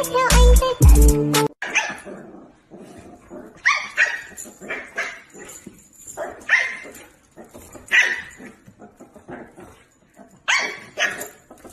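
Music with a beat that cuts off about a second and a half in, followed by a dog barking: single short barks spaced a second or two apart, with a pause before two more barks near the end.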